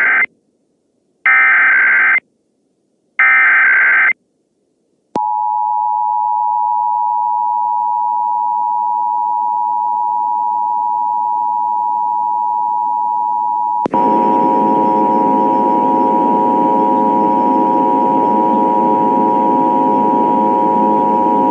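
Emergency Alert System test: the SAME header's short bursts of digital data tones, sent three times, then the steady two-tone EAS attention signal, 853 and 960 Hz together. About 14 s in, the attention tone goes on with a harsh, noisy layer beneath it.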